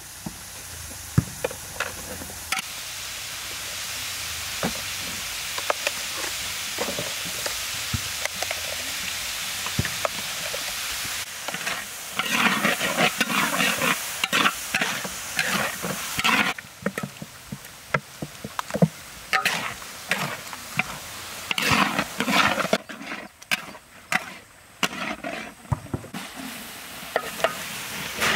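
Diced carrots, peas and green beans sizzling in oil in a large wok, a steady hiss for the first ten seconds or so. After that a metal spatula scrapes and stirs the vegetables against the wok in quick, uneven strokes with occasional clinks.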